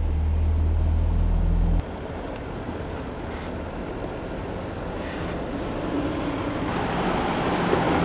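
Mazda BT-50 ute's engine running as it crawls up a steep rocky 4WD track: a loud low steady drone that cuts off abruptly about two seconds in, then a quieter engine sound that grows steadily louder as the truck approaches.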